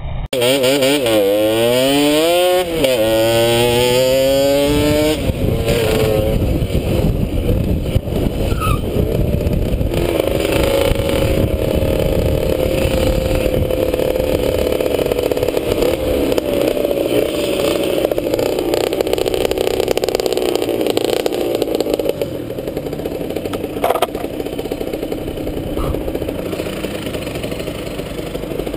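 Simson moped's two-stroke engine with a resonator exhaust, revving up and falling back several times in the first few seconds as it pulls through the gears, then running at a steadier speed. Wind rushes on the helmet camera's microphone throughout.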